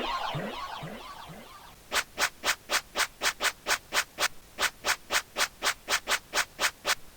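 Cartoon sound effects: a fading tail of small falling tones dies away, then a quick, even run of short scraping or rubbing strokes, about four a second.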